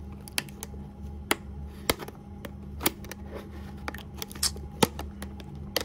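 Scissors snipping through a plastic shrink-wrap sleeve in short, irregular cuts, each heard as a sharp click, about a dozen over a few seconds.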